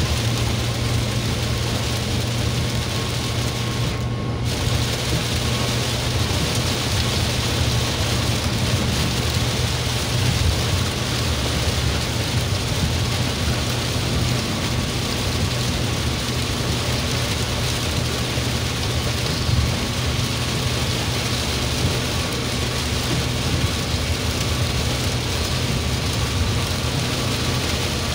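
Heavy rain falling on a car's roof and windscreen, heard from inside the cabin as a steady, loud hiss over the low hum of the engine and tyres.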